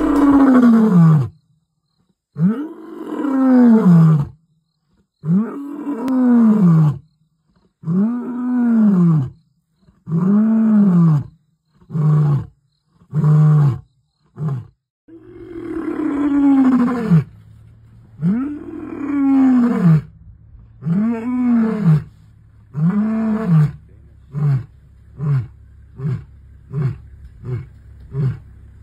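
Male lion roaring in two full roaring bouts: each opens with long, deep, moaning roars that grow shorter and ends in a run of short grunts, the last one quickening to about one and a half grunts a second near the end.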